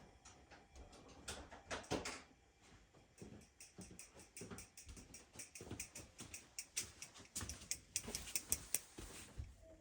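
Hands working at furnace parts with small pliers: a run of light clicks, taps and scraping that grows busier near the end.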